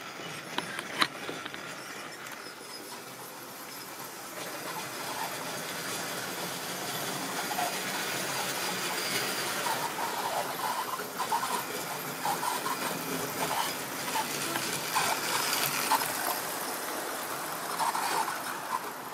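Tri-ang model train, a steam locomotive hauling coaches, running along the track with a steady whirring rattle that grows louder as it comes closer. Small clicks are scattered through it, with one sharper click about a second in.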